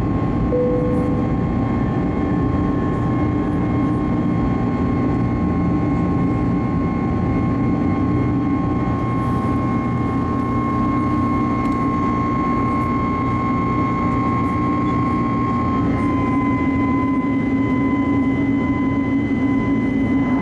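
Airbus A321neo's turbofan engines heard from inside the cabin during the climb after take-off: steady engine noise and rushing air with a high whine, which steps slightly down in pitch about sixteen seconds in.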